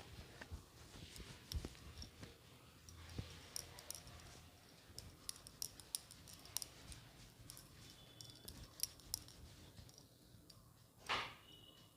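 Hair being dried with a towel: faint rustling and scattered light clicks, with one louder swish of the towel and wet hair being flicked near the end.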